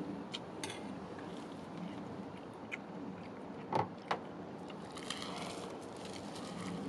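Table eating sounds: scattered clicks of chopsticks and spoons against dishes over a steady low background hum, with a sharp knock a little past the middle and a second one just after.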